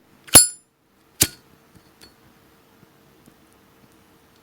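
Zippo lighter clicking: a sharp metallic clink with a brief high ring, typical of the lid snapping open, then a second softer click about a second later.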